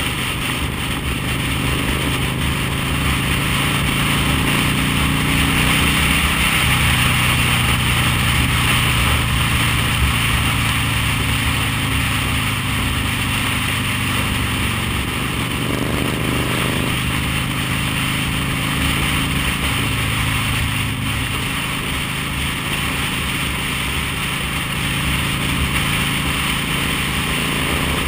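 V-twin cruiser motorcycle engine running at road speed under strong wind rush on the microphone. The engine note steps up and down a few times, with a short rise in pitch about halfway through.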